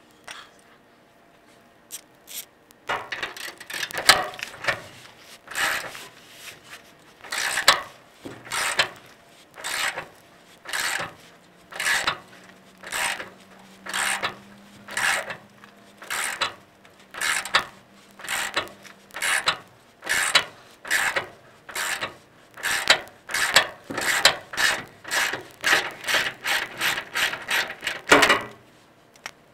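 Hand socket ratchet wrench worked back and forth, a rattle of pawl clicks on each stroke, a little over one stroke a second, as a nut or bolt that is not stuck is turned. It starts about three seconds in and stops just before the end.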